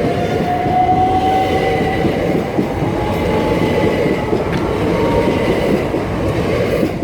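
Train passing close by at a level crossing: a loud rush and rumble of wheels on the rails, with thin steady whining tones over it. It cuts off sharply at the end.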